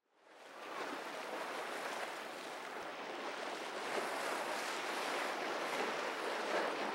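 Steady rush of waves and wind on open harbour water, fading in over the first second.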